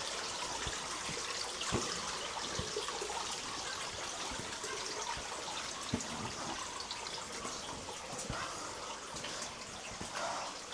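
Water trickling and dripping in a narrow rock crack, a steady wet hiss with a few sharp knocks scattered through.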